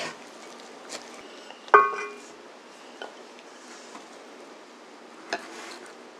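Wooden spatula scraping and scooping cooked rice out of a heavy black pot into a ceramic bowl, with light clicks, a ringing clink of bowl or spatula against the pot about two seconds in, and a sharp knock near the end.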